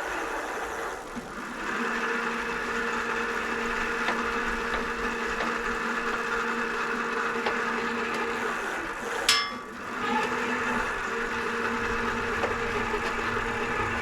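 E-bike electric motor running under throttle, spinning the rear wheel and freshly cleaned chain with a steady whine. About nine seconds in there is a sharp click and a brief dip, then it runs steadily again. No clunking can be heard from the drivetrain.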